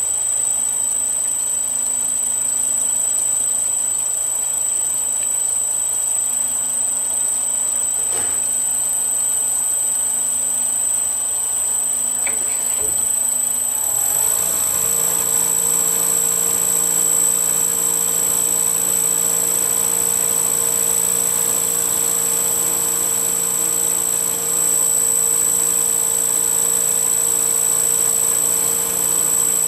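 Wood lathe running steadily with a steady high whine, spinning a wooden top body in a collet chuck. About halfway through, its sound changes as a rod held in the tailstock is brought up against the spinning piece.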